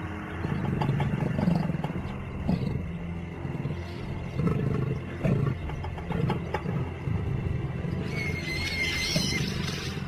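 A leopard and a hyena growling in repeated rough bursts as they fight over a kudu carcass, with a high wavering squeal near the end.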